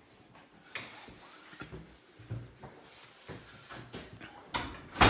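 Irregular footsteps and soft knocks of someone walking indoors while carrying a phone, with a louder thud near the end.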